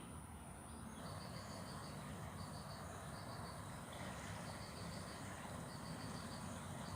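Insects chirping in short high-pitched trills of three to six quick pulses, repeating roughly once a second, over a steady low background rush. The chirping and the background grow slightly louder about a second in.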